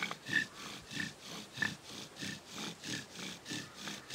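Bow drill friction fire: a mulberry spindle spinning back and forth in a western red cedar hearthboard under a deer antler bearing block, squeaking and grinding with each stroke of the bow at about three strokes a second, while an ember is being built up.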